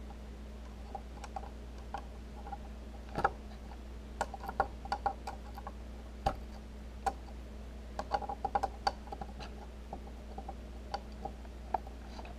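Small irregular clicks and taps of a long screwdriver's tip working a terminal screw on a plastic replacement cord plug, some single and some in quick clusters, over a low steady hum.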